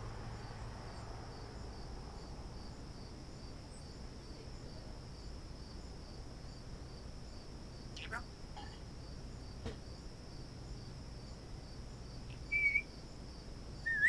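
Crickets chirping steadily in an even, pulsing high trill, with a few short bird whistles over it: a falling one about eight seconds in and a brief held one near the end.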